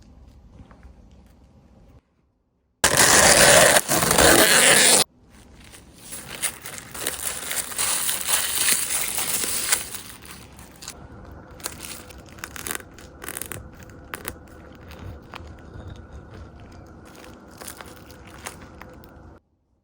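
Food-preparation handling sounds: a loud burst of noise about three seconds in lasting two seconds, then crackling and scraping, then quieter handling with scattered sharp clicks.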